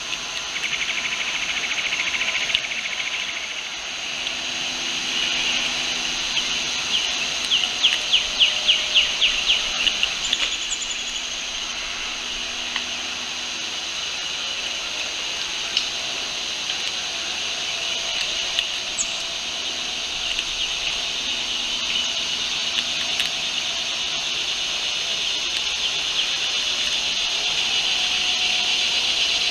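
Steady outdoor insect chorus of crickets or cicadas, a dense high-pitched trilling hiss. Near the middle, a run of about ten rhythmic pulses rises over the chorus for a couple of seconds.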